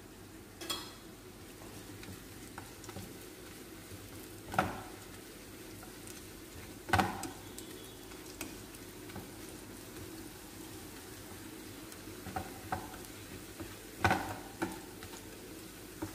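Pieces of khubz flatbread frying in hot oil in a pan, a steady sizzle, stirred with a utensil that knocks sharply against the pan about six times.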